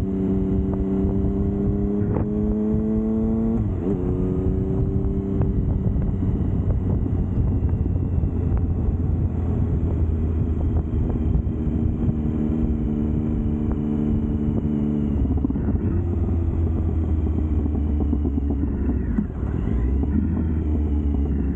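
Triumph Speed Triple's three-cylinder engine under way. Its note rises as it pulls through the revs, drops sharply at a gear change a little under four seconds in, then holds steady before shifting again around fifteen seconds, with a steady low rumble underneath.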